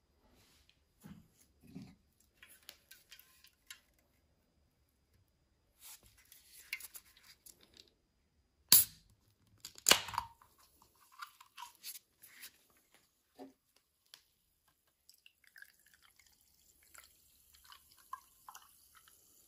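Close-miked mealtime handling of dishes, cutlery and food: scattered soft clicks and rustles, with two sharp knocks about 9 and 10 seconds in, the second ringing briefly like cutlery on a plate.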